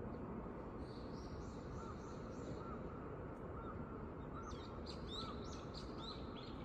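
Birds chirping over the steady low rumble of morning city ambience, with a short soft note repeating about once a second in the middle.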